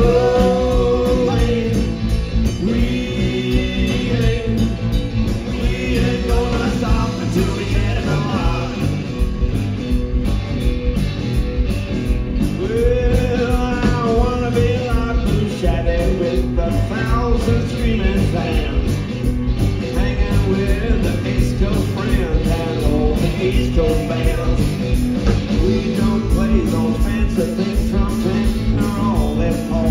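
Live blues-rock band playing through a PA: electric guitars over a drum kit, a steady driving beat with a melodic lead line.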